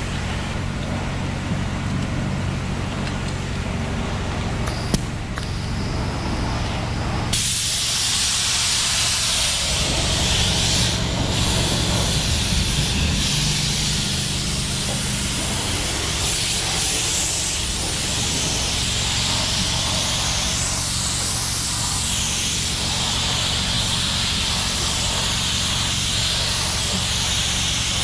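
A steady low hum, then, about seven seconds in, the sudden, continuous high air hiss of a gravity-feed spray gun spraying filler primer onto a car door panel.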